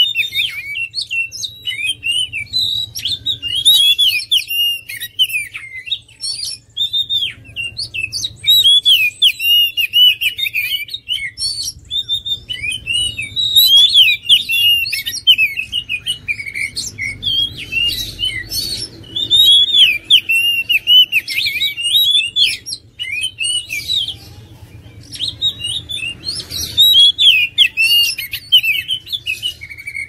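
Oriental magpie-robin singing: rapid runs of varied whistles and chirps in bouts, broken by short pauses.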